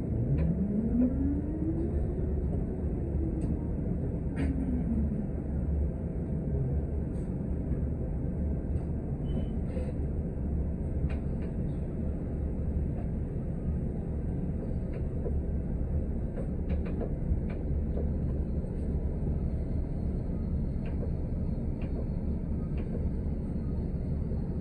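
City transit bus heard from inside while riding: a steady low drivetrain rumble with scattered small rattles. During the first five seconds a whine rises in pitch and then falls away.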